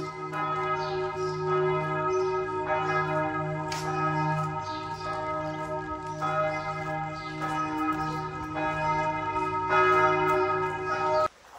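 Church bells ringing, several bells sounding together, with a new stroke about once a second and the tones hanging on between strokes. The ringing cuts off suddenly near the end.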